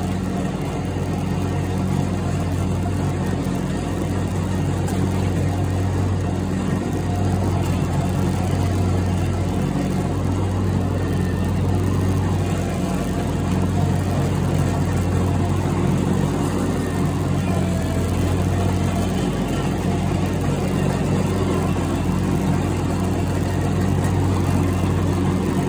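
Riding lawn mower's engine running steadily while mowing, a constant low hum.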